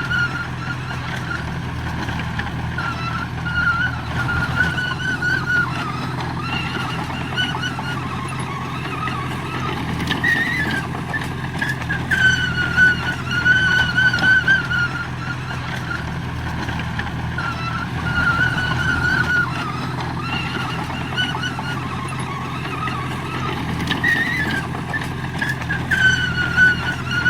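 Heavy diesel earthmoving machine running steadily, with a high wavering squeal that comes and goes every several seconds.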